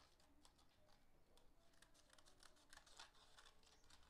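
Faint, irregular snips of scissors cutting green crepe paper into slanted leaf shapes, with small paper-handling clicks.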